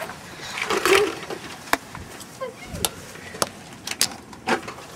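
A brief voice about a second in, then a handful of sharp, separate clicks and knocks at uneven gaps.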